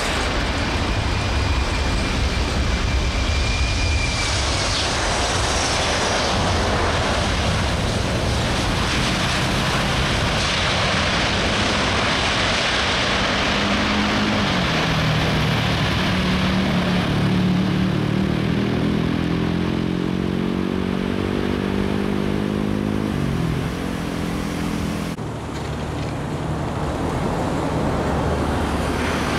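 Boeing C-17A Globemaster III's four Pratt & Whitney F117 turbofans running through touchdown and landing rollout, a dense jet rush. From about halfway in, the engine whine climbs for several seconds, then drops sharply. Near the end the sound cuts abruptly to a steadier, more distant rumble.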